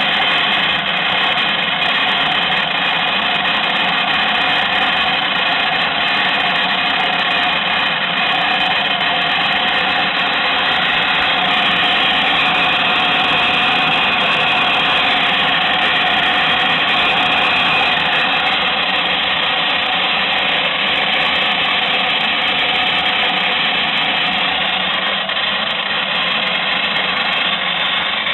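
Small electric motor of a 1960s MFZ Fuchs toy twin-tub washing machine running steadily, a whine made of several steady tones. The owner says rust in the motor keeps the agitator and spinner from running as fast as they should.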